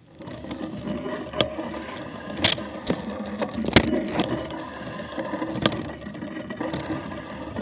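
Mountain bike rolling fast over rough, bumpy grass: a steady rattle with several sharp knocks as it hits bumps, the loudest about four seconds in.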